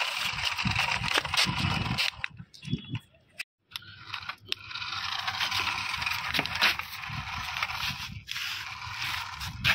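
Remote-control toy car driving over gritty dirt, its plastic wheels crunching and scraping on the grit. The sound drops out briefly about a third of the way in.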